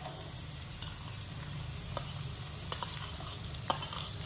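Chopped onions dropping into hot oil with garlic and whole spices in a pan, sizzling steadily, with a few sharp clicks from about two seconds in.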